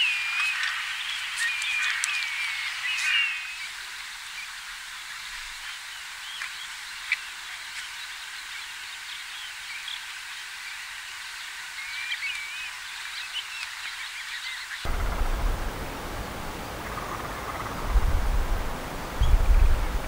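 Common greenshank calling: runs of clear, ringing piping notes in the first few seconds and again about twelve seconds in. About fifteen seconds in, the sound switches to a windier recording, with low rumbling gusts of wind on the microphone near the end.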